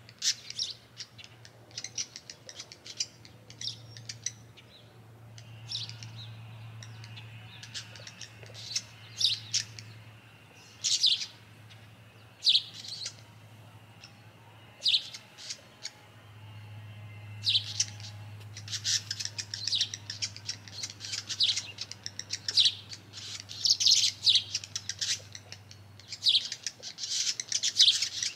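Small songbirds chirping in many short, high calls, sparse at first and coming thick and fast in the second half. A low steady hum runs underneath.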